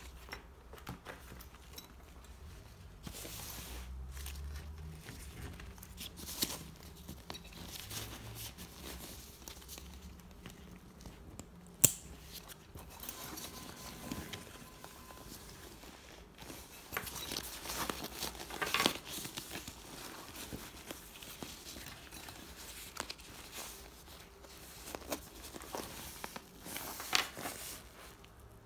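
Black nylon camera bag handled and turned over by hand: the fabric rustles and crinkles in uneven bursts, with a sharp click about twelve seconds in and louder rustling in the second half.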